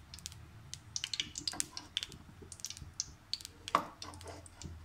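Ghee melting in a steel kadhai on low heat, giving off faint irregular crackles and pops, with one louder click a little before the end.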